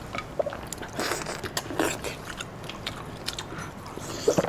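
Close-up eating sounds: a person biting and chewing food, with irregular crunchy clicks.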